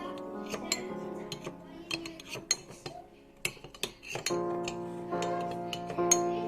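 Background music with sustained instrumental notes, over frequent sharp clinks of kitchen utensils against dishes. The music drops out briefly in the middle, leaving the clinking, then comes back.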